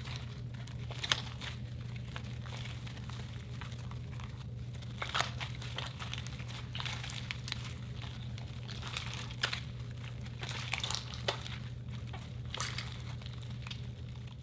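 Blue glitter slime being squeezed, folded and stretched by hand, giving irregular sticky crackles and pops, a few of them louder, over a steady low hum.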